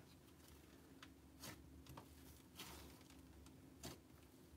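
Near silence with about five faint, soft clicks and pops from fluffy slime being kneaded and poked by hand.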